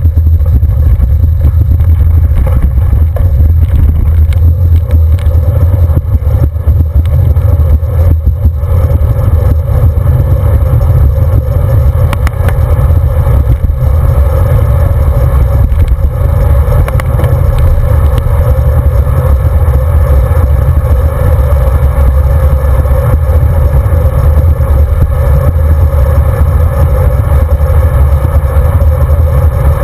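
Wind rushing over the microphone of a camera on a road bike's handlebars as it rides, with the tyres rolling underneath: rougher and crackly on gravel for the first eight seconds or so, then a smoother steady hum on asphalt.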